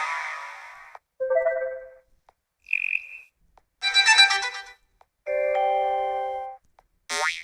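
A run of different short smartphone notification tones from a Vsmart Live phone, played one after another with brief gaps: short chimes, a brief beep, a held chord about a second long, and a quick rising sweep near the end.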